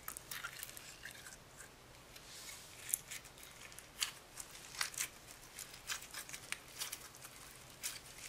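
Slime packed with tiny beads being squeezed and pulled by hand, giving irregular sharp crunchy crackles and clicks.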